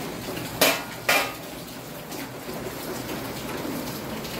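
Two sharp metallic clanks of a utensil against a metal cooking pot, about half a second apart, each ringing briefly, over a steady hiss of rain.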